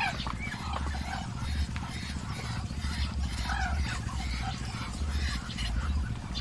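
A flock of Muscovy ducks and chickens feeding, with many short scattered calls over a steady low rumble.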